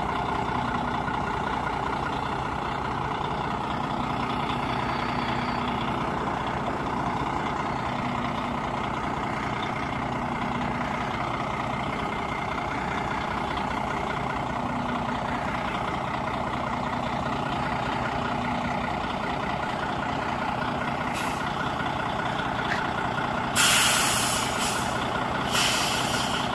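Semi-truck's diesel engine running steadily as the rig backs slowly. Near the end come a sudden loud hiss of air that fades over about a second and then a second, shorter hiss: the air brakes being set once the truck stops.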